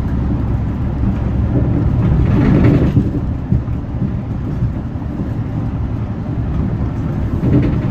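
Hyundai Green City diesel bus driving on the road: a steady low engine drone mixed with road rumble, swelling briefly about two to three seconds in and again near the end.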